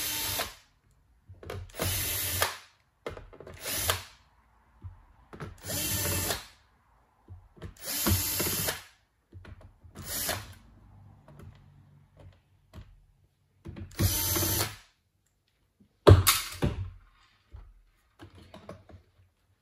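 Bosch cordless drill-driver spinning in about eight short runs, each lasting a second or less, with pauses between them, as it backs small screws out of a laptop's plastic bottom cover. The runs stop a few seconds before the end, leaving only faint handling sounds.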